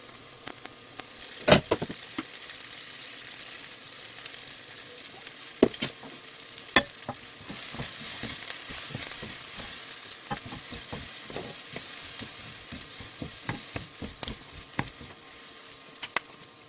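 Food sizzling as it is stir-fried in a frying pan, with a utensil knocking and scraping against the pan several times. The sizzle grows louder about halfway through.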